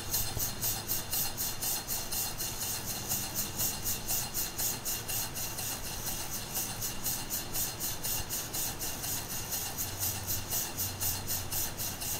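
Antique Haynes horizontal steam engine with a 2-inch bore and 2½-inch stroke, running steadily with a ball governor, its exhaust hissing in even puffs about four times a second.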